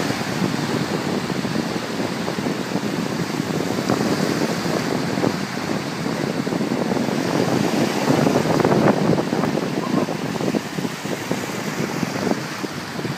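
Small surf waves breaking and washing through the shallows, with wind buffeting the microphone in gusts that are loudest about two-thirds of the way in.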